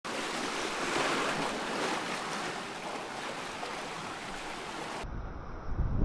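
Stormy sea surf washing against rocks: a broad hiss that swells about a second in and slowly ebbs. About five seconds in it changes abruptly to a louder, low rumble of wind buffeting the microphone.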